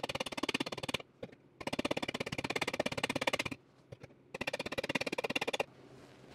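Fast, light hammer taps on a steel Rostyle wheel cover, pushing a dented vent opening back into shape. The taps come in three rapid runs with short pauses between them, and stop about five and a half seconds in.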